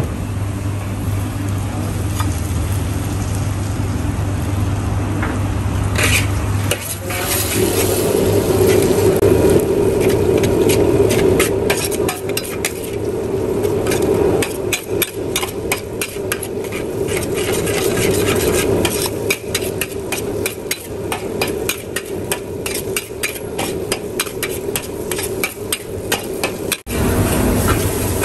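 Mee goreng noodles sizzling in a wok while a steel spatula scrapes and clatters against the pan in quick, repeated strokes. A low steady hum underlies the first several seconds.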